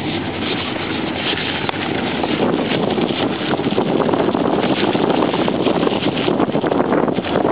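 Car driving, a steady rush of tyre, engine and wind noise heard from inside the cabin, growing somewhat louder about halfway through.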